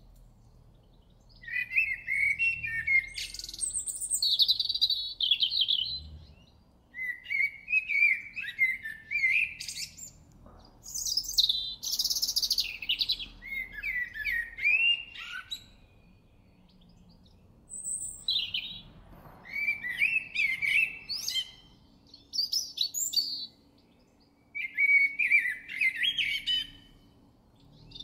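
Eurasian blackbird singing: about six separate song phrases, each a few seconds long, with short pauses between them.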